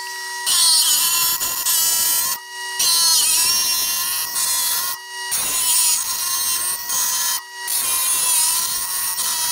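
Lapidary trim saw running with a steady whine while its blade grinds through a sheet of stained glass with a high, hissing grind. The sound comes in four stretches, each breaking off abruptly, as the radial cuts are made into the glass circle.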